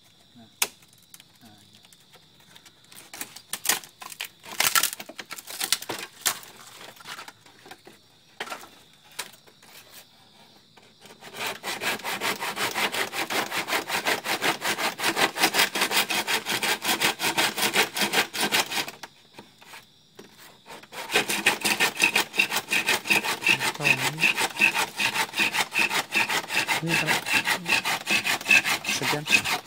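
Small hand saw cutting across a green bamboo stem with quick back-and-forth strokes. A few scattered strokes come first, then steady fast sawing starts about a third of the way in, stops briefly about two-thirds in, and resumes.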